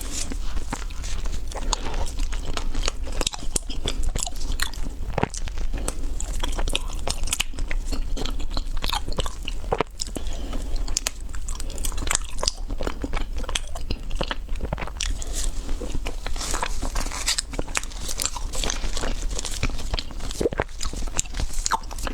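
Close-miked eating of a chocolate dessert: a steady run of biting and chewing made of many sharp, crisp clicks.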